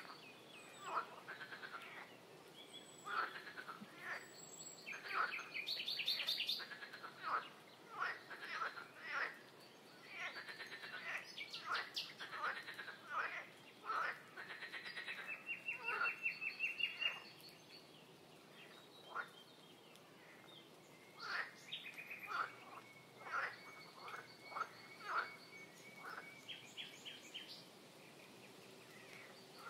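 A chorus of many short chirps and calls from several wetland animals, one after another. A fast trill comes about sixteen seconds in, and a long, steady high note is held from about twenty-two to twenty-seven seconds.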